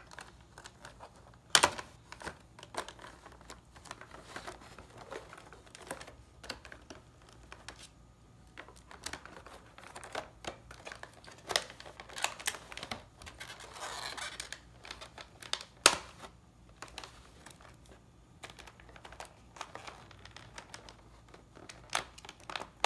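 Scissors cutting into a clear plastic blister pack, with irregular clicks, snips and crinkling of the stiff plastic; two sharp snaps stand out, one soon after the start and one past the middle.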